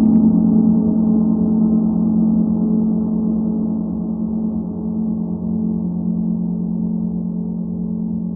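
Singing bowl ringing with a sustained low hum and many overtones, slowly fading.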